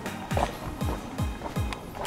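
Background music with a steady beat: a kick drum about twice a second, with lighter percussion over it.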